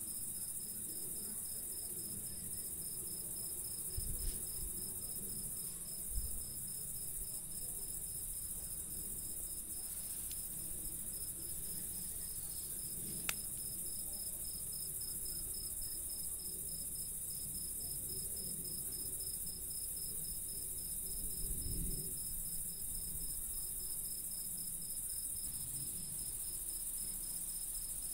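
Chorus of singing crickets and bush-crickets: a steady high hiss with a rapidly pulsing trill beneath it. A few low bumps and one sharp click come in along the way.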